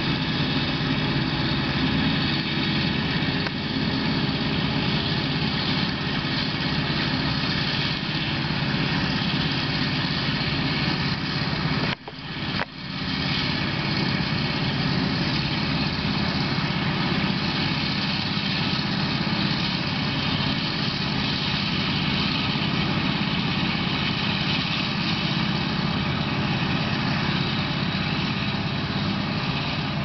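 Claas Jaguar forage harvester chopping maize, with a tractor and trailer running alongside: a steady, dense machinery drone of engine and chopping. The sound drops out briefly about twelve seconds in.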